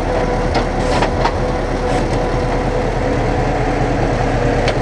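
Diesel engine of a cyklop-type hydraulic crane loader running steadily under work, with a steady whine over it while the hydraulic grab arm swings, and a few light knocks in the first second or so.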